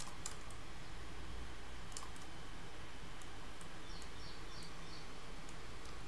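Faint computer mouse clicks, then a quick run of scroll-wheel ticks about four seconds in, over a steady low hum.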